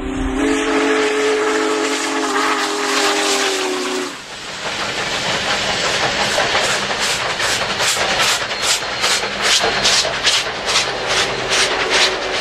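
Steam locomotive whistle blowing one long chord for about four seconds, followed by hissing steam and the locomotive's exhaust chuffing at about three beats a second.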